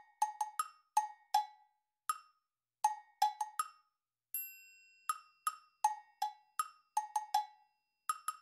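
Background music: a light tune of short, hollow wood-block-like knocks on two pitches, about three a second, with a single bell-like chime ringing about four seconds in.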